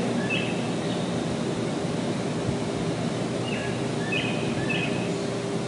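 Steady machine hum with a constant low tone, over which a bird gives short high chirps about four times. No sharp bang or knock is heard.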